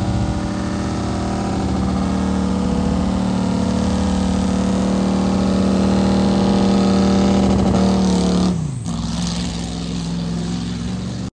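Ford pickup mud truck's engine held at high revs as its tyres spin through a mud pit. About eight and a half seconds in, the revs drop quickly and the engine settles at a lower, steady speed.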